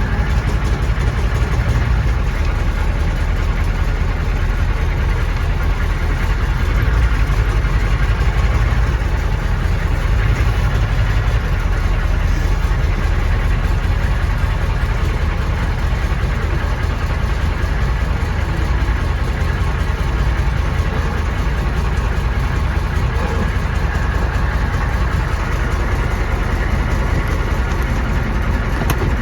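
1993 M998 HMMWV's 6.5-litre naturally aspirated Detroit Diesel V8 idling steadily with a knock, which the owner takes for a rod bent when the engine hydrolocked after sucking water down the intake.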